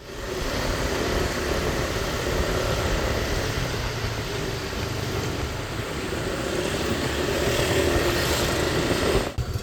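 Motor vehicle on the move: a steady engine and road rumble that cuts off suddenly about nine seconds in.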